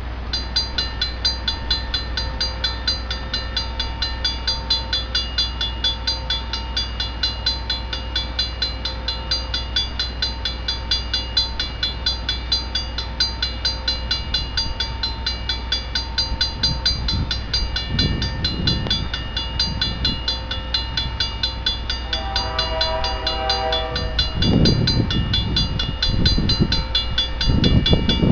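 Railway level-crossing warning bell ringing in quick, even strokes. About 22 seconds in, a locomotive horn sounds for about two seconds, and the low rumble of the approaching train grows louder near the end.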